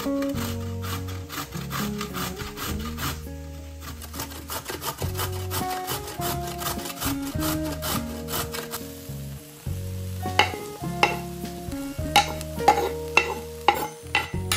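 Food sizzling in a frying pan while a spatula stirs and scrapes it, with sharper knocks against the pan in the last few seconds. Soft background guitar music plays underneath.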